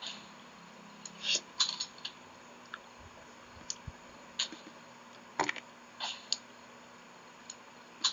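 Wet mouth sounds of someone eating soft, ripe soursop flesh: irregular lip smacks, sucking and chewing clicks, about one every second or so.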